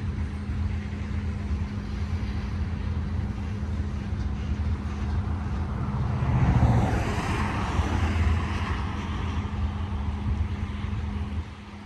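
BNSF double-stack container train rolling past: a steady low rumble with a steady hum. Wheel and rail noise swells about six seconds in, and the sound drops off sharply near the end.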